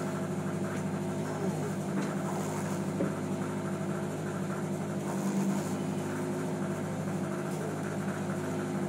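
Fishing boat's engine running steadily, a low even drone with several held tones.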